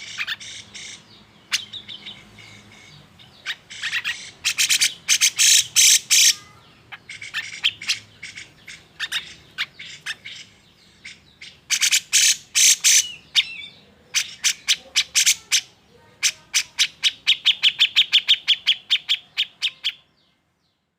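Grey-cheeked bulbul (cucak jenggot) calling in agitation: loud bursts of sharp, rapidly repeated notes. The last burst is a fast run of about seven notes a second that stops shortly before the end.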